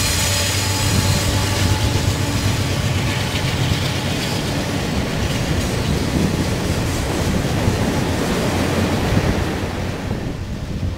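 CSX GE AC4400CW diesel-electric locomotives passing close by, a steady low engine drone over the noise of the moving train. About ten seconds in the locomotives have gone by and the sound eases a little as loaded hopper cars roll past.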